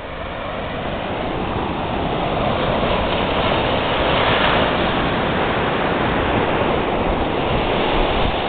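Ocean surf breaking and washing up onto a sandy beach: a steady rushing that swells over the first couple of seconds, loudest about four seconds in.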